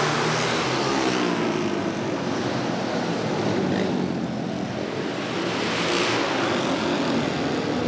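Pack of flat-track racing motorcycles running flat out around the dirt oval: loud, continuous engine noise that swells as bikes go by, once near the start and again about six seconds in.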